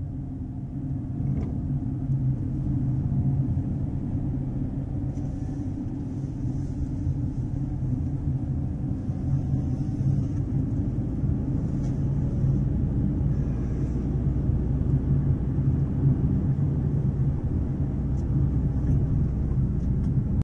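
Road and engine noise inside a moving car's cabin: a steady low rumble that grows louder over the first few seconds, then holds.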